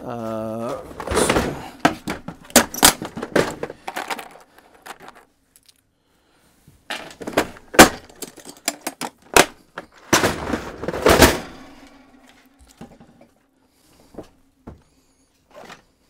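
Handling noise on a workbench: knocks, clicks and rattles of metal RV furnace parts and a plastic parts organizer being moved and set down, in clusters with a quiet spell between them.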